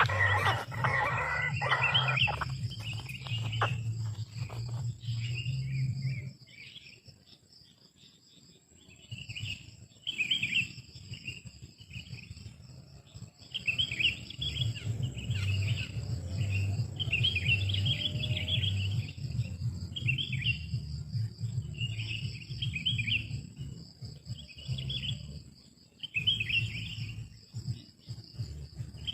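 Bird calls outdoors: short chirping phrases repeating every second or two over a steady high insect drone, with a low rumbling noise under them that fades out for a few seconds after the start.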